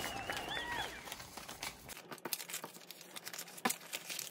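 Paper banknotes rustling and crinkling as a stack of dollar bills is fanned through and counted by hand, with a quick run of light snaps from the notes.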